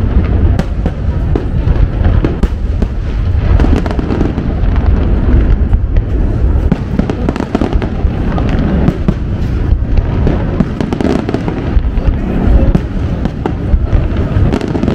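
Aerial fireworks display with shells bursting in quick succession. Deep booms overlap with many sharp reports, a dense, continuous volley with no pauses.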